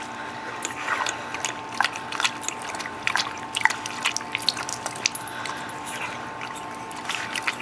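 Siberian husky lapping at a lick-activated dog waterer on an outdoor faucet: irregular wet licking clicks, a few a second, with water trickling and dripping out as the tongue pushes the valve.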